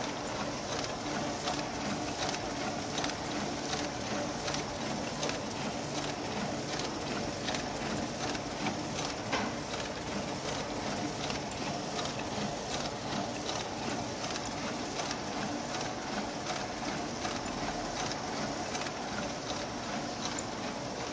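AB Dick 9810 mini offset press running and printing, a steady mechanical clatter with fast, regular clicking.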